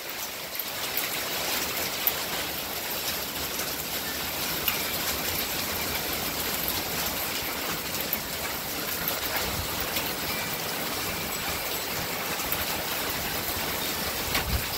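Heavy rain mixed with small hail falling: a steady, dense hiss with scattered sharper ticks.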